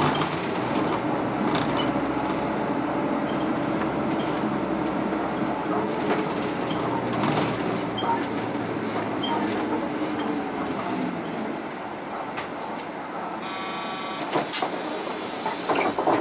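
Mitsubishi Fuso Aero Midi MK city bus heard from inside the cabin, its diesel engine running steadily on the move, then easing off and going quieter as the bus slows to a stop. Near the end a short buzzer sounds, then a loud hiss of compressed air, with a few clicks.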